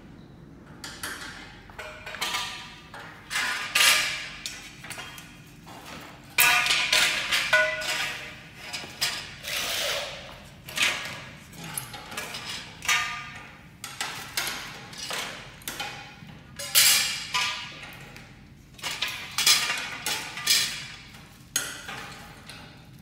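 Aluminium shelf rails and fittings knocking and clanking as they are handled on a hard floor. The knocks come irregularly, several a second at times, and some ring briefly like struck metal.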